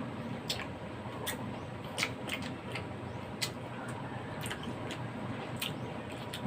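Eating at the table: a string of separate sharp clicks and smacks, one every half second to a second, over a steady low hum.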